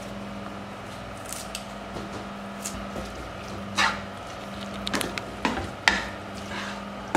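Wooden spatula stirring and scraping pieces of squid roast around a frying pan, with a few sharp scrapes and knocks against the pan, over a steady low hum.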